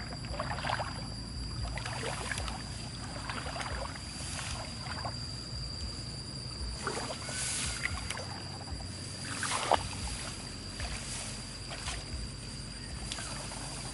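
Hands sloshing and splashing in shallow muddy water in irregular bursts every second or two, with one sharper slap about two-thirds of the way through, over a steady high-pitched whine.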